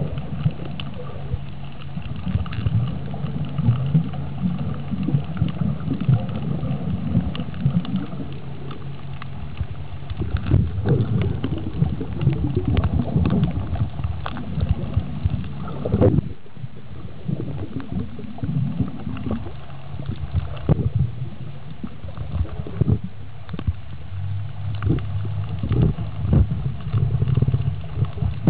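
Underwater sound picked up by a submerged camera while snorkeling over a reef: a low, muffled rumble of water with many small clicks and crackles through it.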